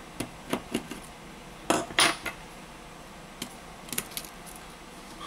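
Sharp little metal clicks and clinks of steel tweezers working at the tiny screws and metal cover of a Xiaomi Mi 9 SE smartphone's opened back. The clicks come singly and in small clusters, with the loudest pair about two seconds in.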